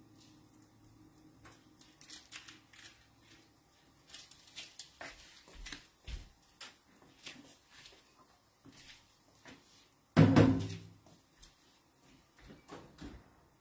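Light clicks and knocks of kitchen things being handled, then one loud, short thud about ten seconds in, followed by a few more clicks.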